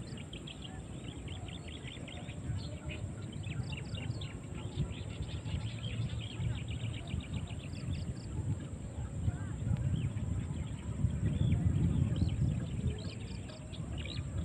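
Small birds chirping, with quick runs of rapid trills, over a low rumble that grows louder near the end.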